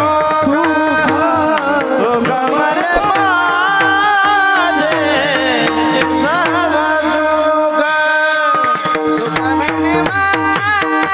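Marathi kirtan singing: a male voice sings a devotional abhang in a richly ornamented, wavering melody over a steady drone, backed by hand-drum strokes and small jingling cymbals that get busier near the end.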